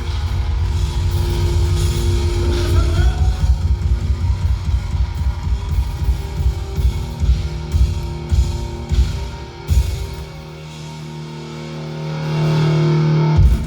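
Rock band playing the instrumental close of a song on electric guitar and drum kit. It drops back about ten seconds in, then a held chord swells near the end and cuts off sharply.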